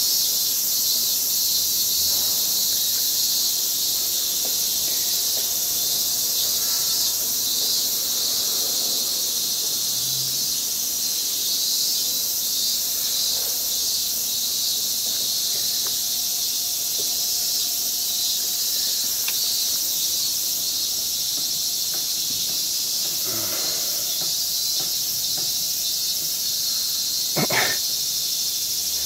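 Steady, high-pitched chorus of night insects, with a short scrape near the end.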